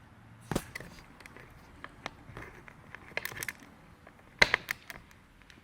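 Scattered clicks and knocks of a camera mount being handled and adjusted, with a sharp knock about half a second in and the loudest near the end.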